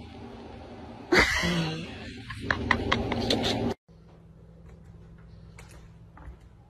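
A person bursts out laughing loudly and breathily, in short repeated pulses, then the sound cuts off abruptly to quiet room noise with a few faint clicks.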